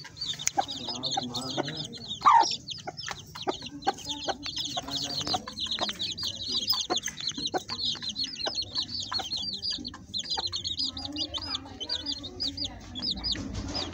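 A brood of chicks peeping rapidly and without a break, high and shrill, while the black mother hen gives low, soft clucks among them; one louder call stands out about two seconds in.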